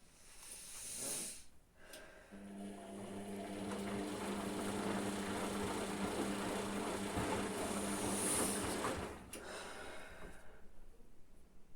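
Hotpoint washing machine working through a rinse-and-spin programme. A short rising and falling swish comes first. Then a steady hum with rushing water noise runs for about seven seconds and cuts off suddenly.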